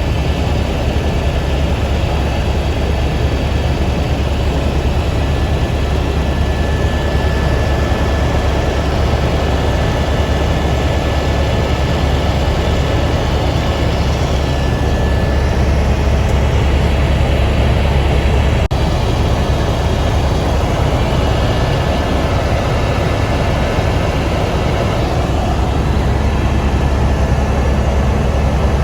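Helicopter in flight, heard from inside the cabin: a steady engine and rotor drone with a deep low hum and a thin high whine that comes and goes.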